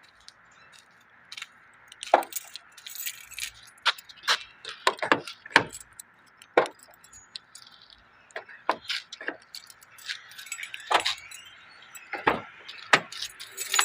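Small metal objects clinking and jangling as they are handled: an irregular scatter of sharp clinks starting about two seconds in.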